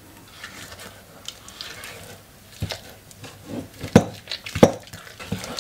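Spatula working beaten egg into a stiff dough in a stainless steel bowl: faint scraping at first, then from about halfway an irregular run of knocks as the spatula presses and strikes against the bowl.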